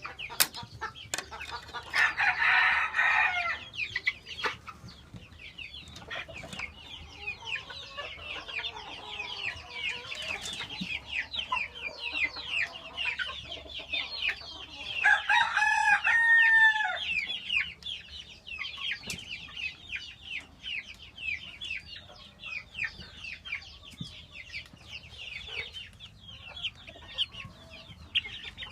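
A flock of chickens clucking and peeping continuously, with many short high chirps. A rooster crows loudly twice, about two seconds in and again around fifteen seconds in.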